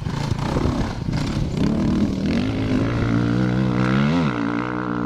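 Off-road motorcycle engine running hard as a bike rides along a dirt track; its pitch climbs and then drops sharply about four seconds in.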